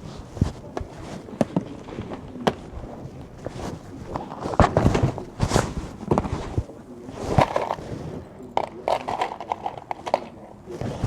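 Clicks, knocks and scraping clatter of hand tools and small metal cable lugs being handled and set down, with some rustling.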